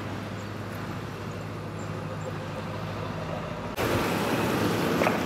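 Steady road and vehicle noise with a low engine hum, which turns suddenly louder near the end.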